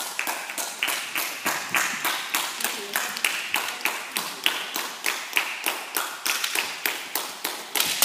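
A steady run of sharp taps, about four a second, each ringing briefly in a large hall.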